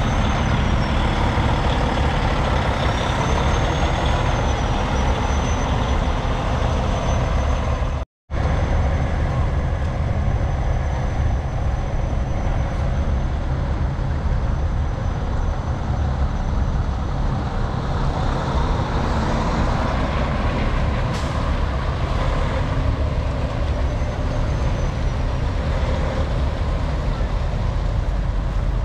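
Semi-truck diesel engines running as big rigs drive out of a truck show, a steady low rumble. A faint thin high whine rises and falls near the start and again near the end, and the sound cuts out completely for a moment about eight seconds in.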